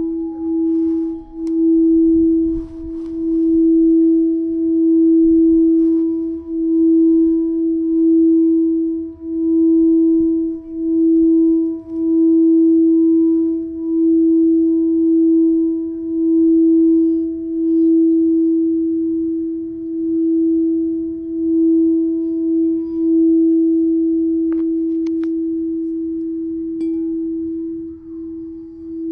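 A singing bowl played around its rim, holding one steady ringing tone that swells and fades in a slow, even pulse.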